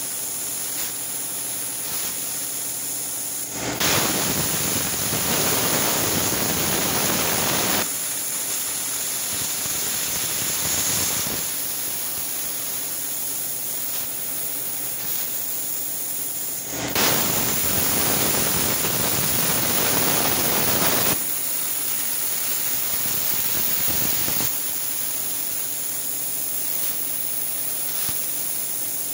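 Plasma torch on a CNC table cutting steel plate: the arc hisses loudly in stretches of about four seconds that start abruptly, about four seconds in and again after about seventeen seconds, with a quieter steady hiss between cuts. A third cut starts right at the end.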